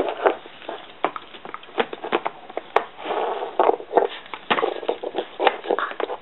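Cardigan Welsh Corgi puppy snuffling and moving right at the microphone: an irregular run of short sniffs, rustles and clicks, with one sharp click nearly three seconds in.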